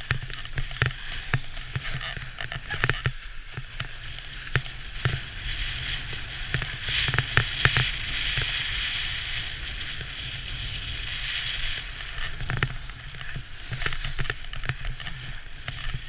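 Edges sliding and scraping over hard-packed snow on a fast downhill run, with steady wind rumble on the microphone and scattered clicks and knocks from bumps. The scrape swells to a louder, steady hiss for several seconds around the middle.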